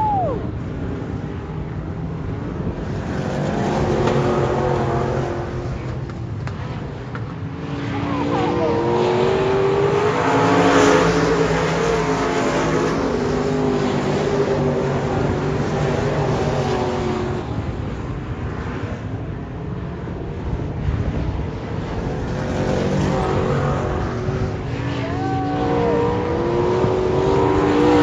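A field of dirt-track race cars running laps, engines revving up and down as they pass the grandstand. The sound swells and fades as the pack comes by, loudest about eleven seconds in and again near the end.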